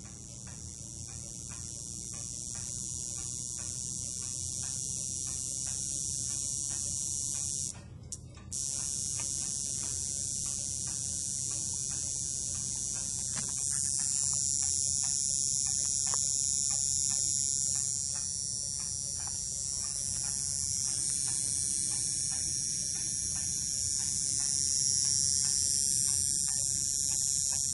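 Old radio transformer driven by a 555-timer PWM circuit and power MOSFET, giving a steady high-pitched whine over a low hum. It cuts out for a moment about eight seconds in, then carries on.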